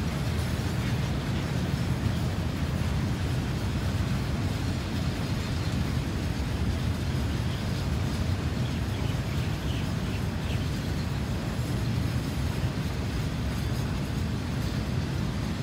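KTM Kargo container freight train's loaded flat wagons rolling past on the track: a steady low rumble.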